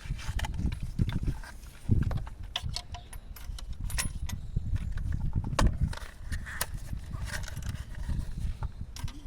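Irregular clicks and knocks with low thuds, uneven in spacing and loudness.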